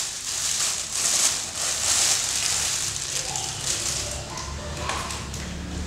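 Thin clear plastic garment bag crinkling and rustling in irregular bursts as a jacket is pulled out of it, dying down about halfway through into softer cloth rustling.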